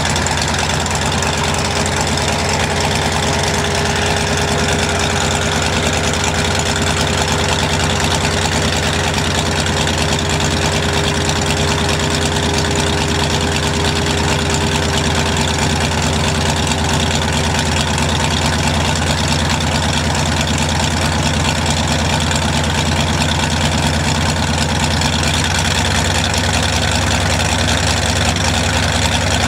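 Rotec radial aircraft engine idling steadily, turning the propeller, with a slight change in its note about 25 seconds in.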